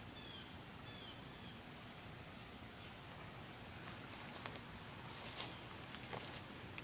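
Faint outdoor ambience: an insect's steady high, pulsing trill, with two short bird chirps about half a second and a second in. A few brief rustling steps through grass come in the second half.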